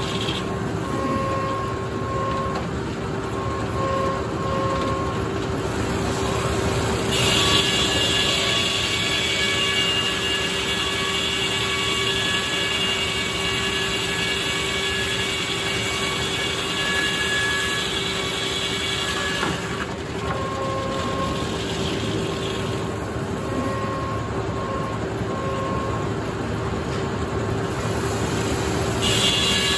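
Circular sawmill running with a steady tone, its blade sawing through a poplar log from about 7 seconds in until about 20 seconds in, when the sound turns louder and harsher; a second cut starts near the end.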